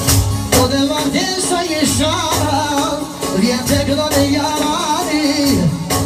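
Loud live folk-style music: a male voice sings a wavering, ornamented melody over a steady percussion beat of about two strokes a second.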